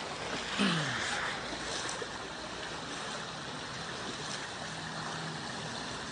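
Floodwater rushing past in a steady, noisy wash, with a short falling tone just under a second in.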